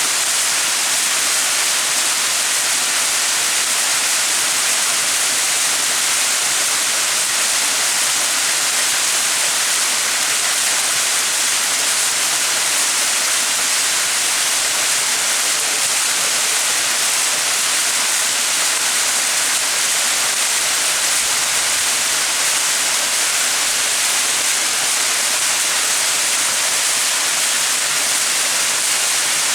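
Small mountain waterfall: water falling and splashing in a steady, even hiss, strongest in the high range.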